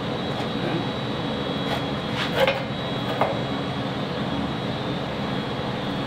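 Steady running noise of a machine, with a few light metal clinks about two and three seconds in.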